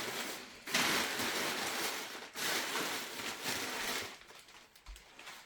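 Paper rustling and crumpling in two long stretches of about a second and a half each, as the protective masking paper is pulled off a freshly plastered fireplace.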